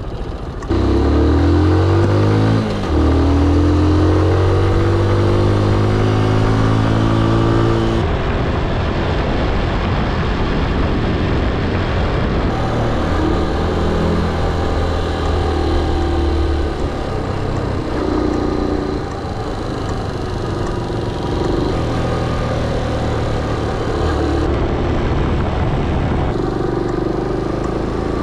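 Honda Little Cub's single-cylinder four-stroke engine, bored out to 88 cc, pulling away with the revs rising and dropping at a gear change a few seconds in, then running steadily on the road with the pitch now and then rising and falling.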